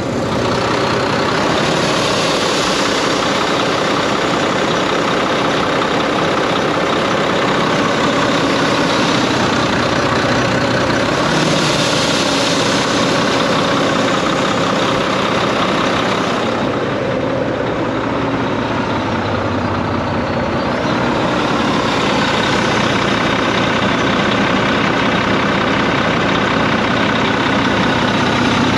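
Volvo D13 inline-six diesel idling steadily just after starting from cold, after months parked. A loud rushing, windy hiss comes from the engine and swells about two seconds in and again for several seconds in the middle; the owner calls it a heavy wind or breeze and has not found its cause.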